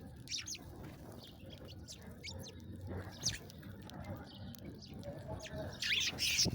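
Small birds chirping: short, high chirps scattered through, with a denser flurry of chirps near the end, over a low background rumble.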